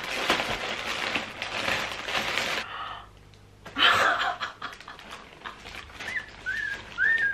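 A plastic mailing bag being torn and rustled open, crackling steadily for the first two and a half seconds. A short laugh follows about four seconds in, and a small dog whines three times in short rising yelps near the end.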